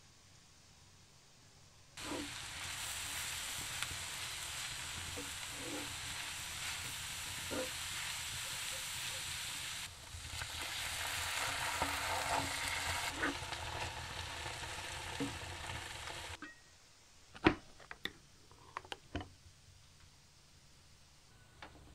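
Onion and grated carrots frying in oil in a cast-iron pan over a wood fire: a steady sizzle starts about two seconds in, with a few light knocks from stirring, and shifts about ten seconds in as tomato paste is poured in. The sizzle stops about sixteen seconds in, followed by a few sharp clicks and knocks, the loudest just after.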